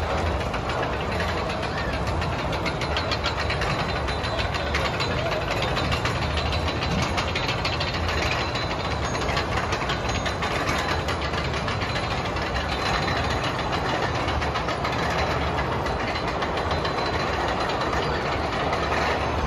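Mine-train roller coaster's chain lift running as the loaded train climbs the lift hill: a steady mechanical rumble with rapid, continuous clicking and clanking from the chain and anti-rollback.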